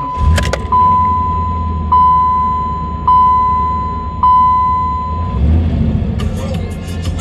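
Pontiac Trans Am's dashboard warning chime bonging about once a second, four times, then stopping. Under it is the low rumble of the car's engine idling.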